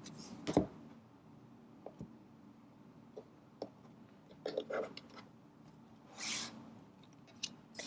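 Tarot cards being drawn from the deck and laid down: scattered soft taps and clicks, with one brief swish about six seconds in.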